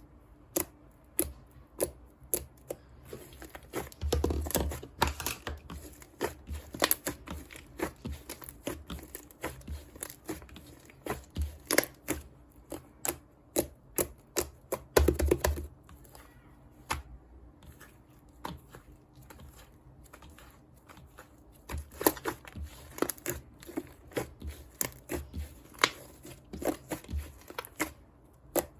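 Irregular sharp taps and clicks with crinkling handling noise, heavier for a moment twice.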